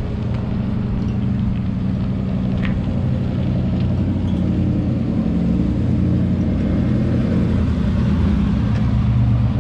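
Ford F350's 460 big-block V8 running under load while towing a boat trailer: a steady low engine drone that grows a little louder toward the end.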